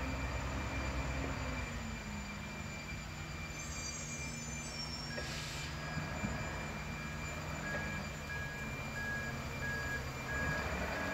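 Mack GU garbage truck's diesel engine running as it manoeuvres, with a brief high squeal about four seconds in and a short hiss just after. Then a reversing alarm starts beeping steadily, about two beeps a second, as the truck backs up.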